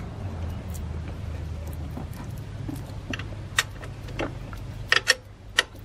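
Small metallic clicks and taps from a nut being threaded and snugged by hand onto the alternator's power-wire terminal stud, a few irregular clicks mostly in the second half, over a steady low hum.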